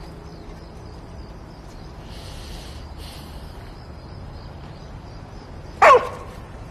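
A collie barks once, a single short bark falling in pitch, about six seconds in. It is the loudest sound, over a low steady hum, with two soft brief hisses about two and three seconds in.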